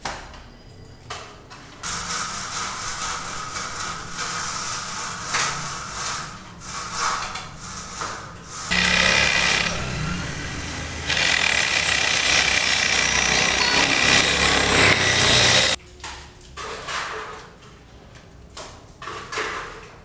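Power tool running loudly on steel roof beams, cutting off suddenly about three-quarters of the way in. Before it there is quieter clattering work noise, and after it a few scattered knocks.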